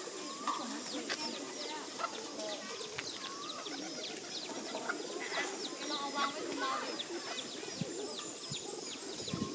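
A crowd of feral pigeons cooing, with many quick, high, falling chirps from other birds all through.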